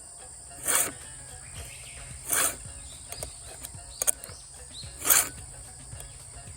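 A hand file rasping across the cutter teeth of a Husqvarna Rancher 450 chainsaw chain during sharpening: three slow strokes, each a short scrape, spaced about one and a half to two and a half seconds apart.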